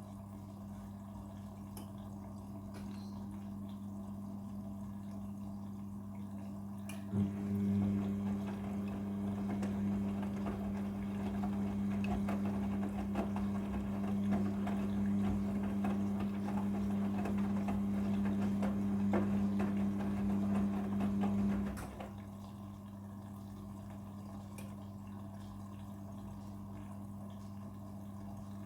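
Front-loading washing machine in its prewash cycle, humming steadily. From about seven seconds in until about twenty-two seconds in, a louder rush of water runs into the machine, then stops suddenly.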